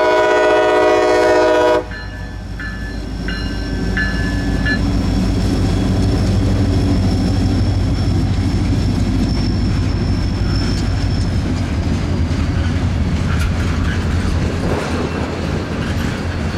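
Diesel freight locomotive's multi-note air horn sounding, cutting off about two seconds in, then the locomotive's engine rumbling and the freight train rolling through the grade crossing.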